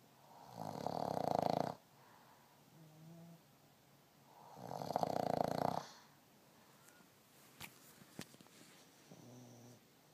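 A man snoring: two long, loud snores about four seconds apart, each cutting off sharply, with softer breathing between and two short clicks in the later part.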